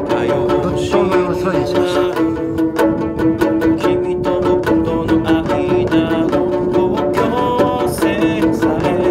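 A song: a man singing a ballad over string accompaniment of bowed cello and plucked strings, with a steady beat.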